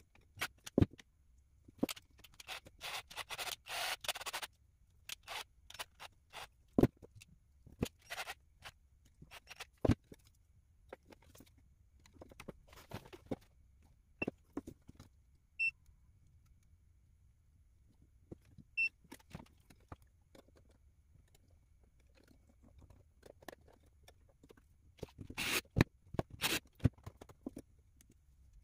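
Hands handling an FPV drone and small tools on a wooden table: scattered clicks, taps and scrapes with a few sharp knocks, a stretch of scraping early on, and two short electronic beeps near the middle.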